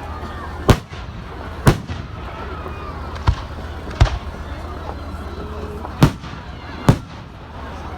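Fireworks display: six sharp bangs of exploding aerial shells at irregular intervals, with faint crowd voices between them.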